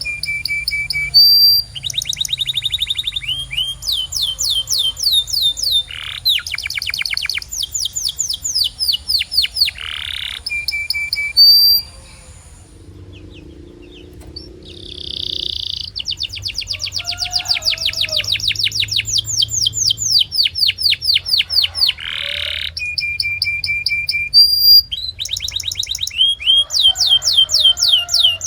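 Canary singing: long rapid trills of quickly repeated high notes, broken by single clear whistles and short rising sweeps, with a pause of about three seconds near the middle.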